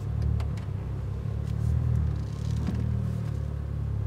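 Mitsubishi Lancer Evolution VI's turbocharged 2.0-litre four-cylinder (4G63) running at low revs while the car is driven slowly, heard from inside the cabin as a steady low drone.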